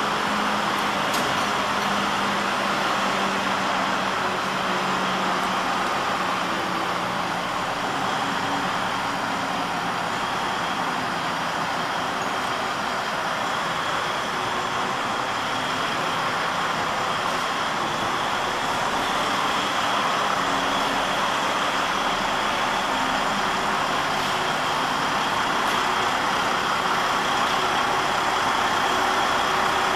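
Volvo articulated dump truck's diesel engine running steadily as the truck creeps forward at low speed, with a thin, steady high whine over the engine sound.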